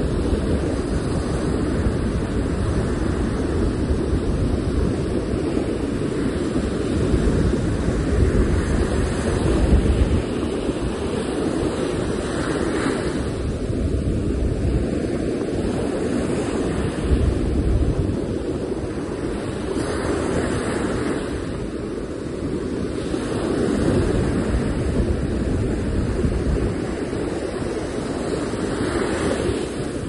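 Small sea waves breaking and washing up on a sandy beach, the surf hissing in swells every few seconds over a steady rumble. Wind buffets the microphone.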